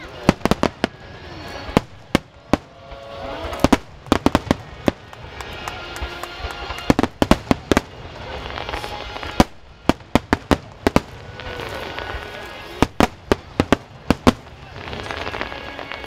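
Wide starmine fireworks display: shells bursting in rapid, irregular succession, many sharp bangs, often several close together in clusters.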